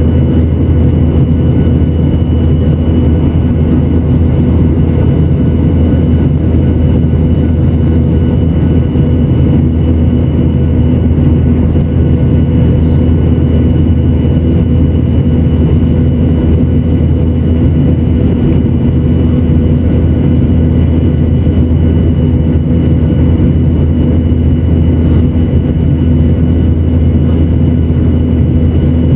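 Jet airliner engines and airflow heard from inside the cabin during the climb after takeoff: a loud, steady drone with a held hum and a thin high whine running through it.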